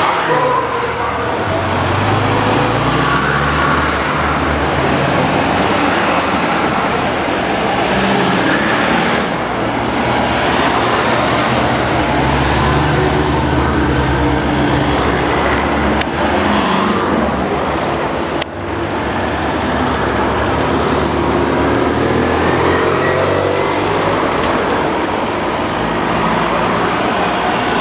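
A procession of race-convoy vehicles, vans and cars, driving past one after another: a continuous mix of engine hum and tyre noise that swells and shifts as each vehicle goes by. A single sharp click about two-thirds of the way through.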